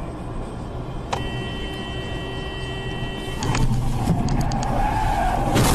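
Car road noise, then a car horn held for about two seconds. It gives way to tyres screeching in a skid and a sudden loud crunch of impact at the very end.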